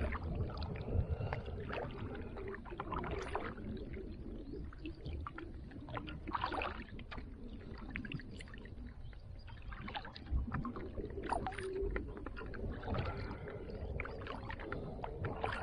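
Kayak paddling: the double-bladed paddle dipping into the water with irregular splashes and drips, over a steady low rumble.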